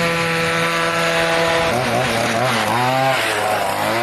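Two-stroke chainsaw engine powering a homemade moped. It runs steadily at high speed, then about one and a half seconds in its pitch falls and wavers down and up as the engine speed changes.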